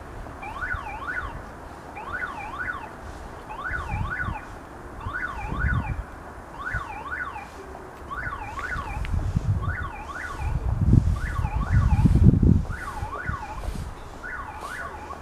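Electronic level-crossing warning signal sounding for an approaching train: a pair of quick up-and-down warbling tones, repeated about every second and a half. Under it, low rumbling noise swells a few times and is loudest about three-quarters of the way through.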